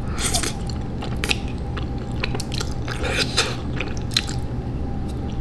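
Close-mic slurping and chewing of spicy instant ramen noodles in a thick sauce: irregular wet slurps and mouth sounds, several short ones spread through.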